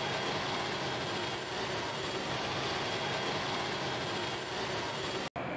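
Tu-22M3 bomber's jet engines (Kuznetsov NK-25 turbofans) running steadily: an even rushing noise with a thin high whine over it. It cuts off abruptly near the end.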